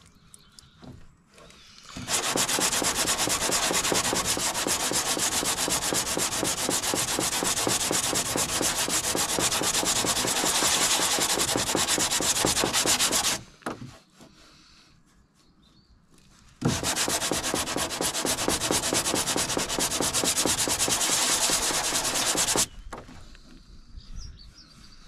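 Hand sanding block with an abrasive disc wet-sanding body filler on a fibreglass car bumper, in quick, even back-and-forth strokes. It starts about two seconds in and runs for about eleven seconds, pauses for about three, then runs again for about six seconds.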